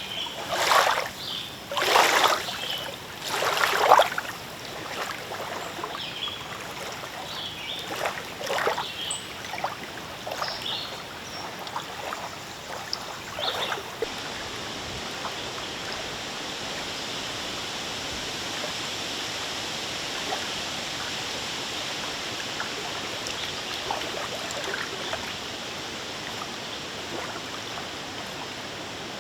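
Small lake waves lapping and splashing against the shore in a breeze, several splashes close together at first. About halfway through it gives way to a steady wash of wind and rippling water.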